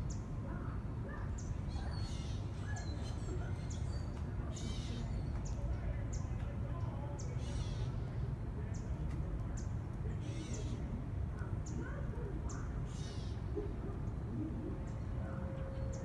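Birds calling: short high chirps repeating about once or twice a second, with harsher calls every couple of seconds, over a steady low outdoor rumble.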